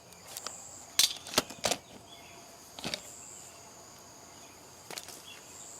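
Insects chirring steadily on a high note, broken by a few sharp clicks and knocks, the loudest cluster about a second in, then single ones near three and five seconds.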